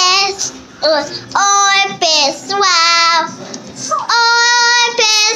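A young girl singing a run of high, held notes in short phrases with brief pauses.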